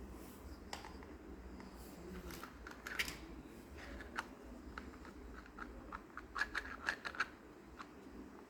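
Small plastic toy pieces and packaging being handled: a series of light clicks and taps, clustered about three seconds in and again between six and seven and a half seconds in.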